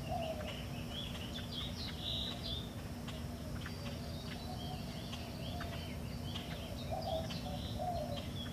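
Bird calls, with many short high chirps and lower cooing notes, over a steady low hum.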